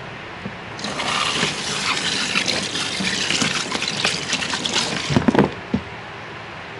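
Water running and splashing into a salon shampoo basin for about four and a half seconds, then stopping, followed by a few short knocks.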